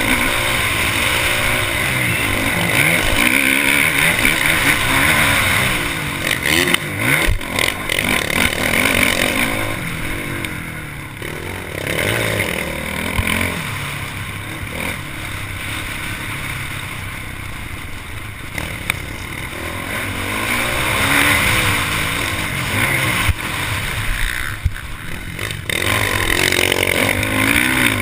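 A Honda motocross bike's engine, heard from on the bike, revving up and down as it is ridden hard over a dirt track, with wind rush. It eases off for a quieter stretch in the middle, and there are sharp knocks from the bike over bumps about seven seconds in.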